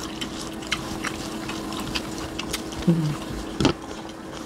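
Close-up eating sounds: chewing and lip-smacking with many small scattered clicks of fingers and food on plates, over a steady low hum. About three seconds in there is a brief low hum from a voice, then a single knock.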